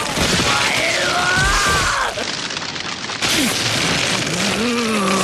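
Anime battle soundtrack: a loud, dense rumble of impact and boom sound effects over dramatic background music.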